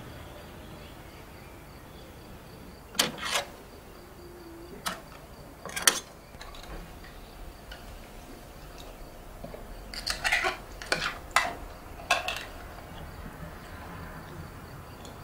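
Metal teaspoon clinking against a cup while stirring: a few separate clinks, then a quick run of them about ten seconds in.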